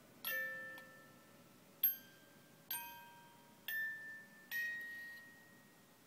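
A slow run of about five single bell-like chime notes, each struck, ringing out and fading, a second or less apart; the notes stop a little before the end.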